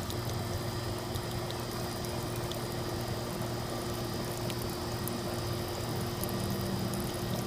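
Heat pump system running in heating mode to thaw a frozen indoor coil: a steady machine hum with a constant tone, unchanging throughout.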